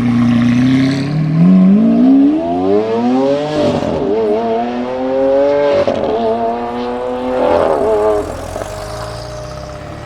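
A sports car's engine accelerating hard through the gears, the pitch climbing then dropping at each upshift, about three shifts, before fading as the car pulls away.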